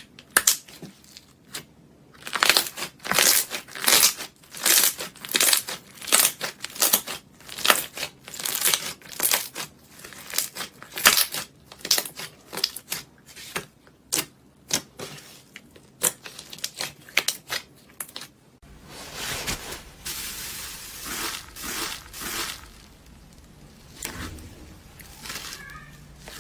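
Slime being pressed and squeezed by hand, giving repeated crackling, crinkly bursts about once every second or less. About two-thirds of the way through the texture changes to a softer, more continuous squishing over a faint low hum.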